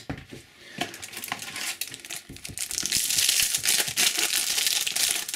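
Light rustles and clicks of trading cards being handled, then, about two seconds in, the foil wrapper of a Panini Adrenalyn XL booster pack crinkling steadily as it is torn open.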